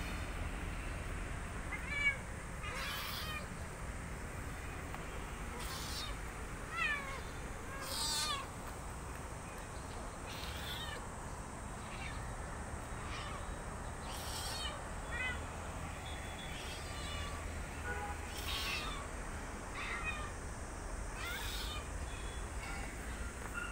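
Several kittens meowing again and again, short high-pitched meows every second or two, calling for the person's attention.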